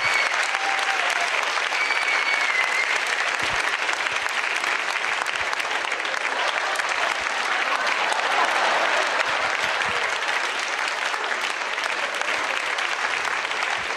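Live audience applauding steadily, greeting a comedian's entrance onto the stage.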